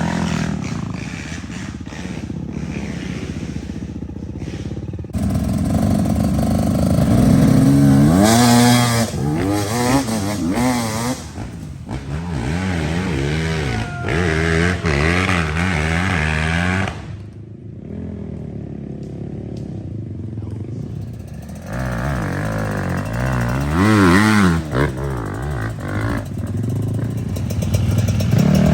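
Dirt bike engine revving, its pitch repeatedly climbing and dropping with the throttle. It eases off to quieter, lower running for a few seconds past the middle, then revs up again.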